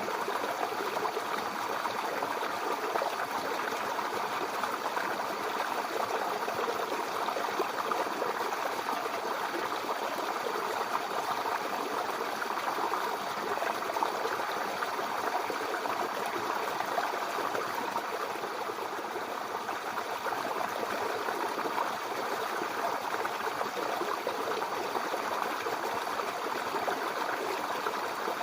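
Mountain river flowing over rocks: a steady rushing and burbling of water, even throughout.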